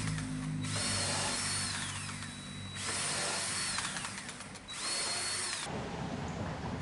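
Power drill running in three bursts of about two seconds each, its whine dropping in pitch at the end of each, as it pre-drills and drives screws into treated pine boards.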